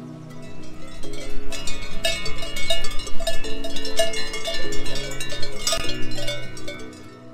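Cowbells on grazing cattle clanging irregularly, several at once, loudest between about one and six seconds in, over soft background music.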